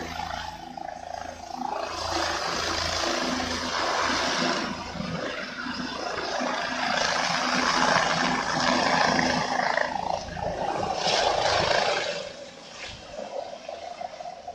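Medical helicopter's rotor and turbine noise: a loud, steady rush with a low, pulsing rotor beat underneath. It swells to its loudest from about seven to twelve seconds in, then drops off sharply.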